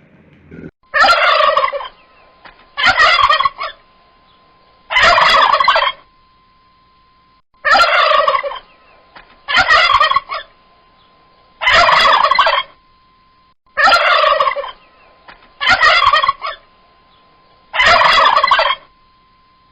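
An animal call repeated nine times, each about a second long, roughly every two seconds.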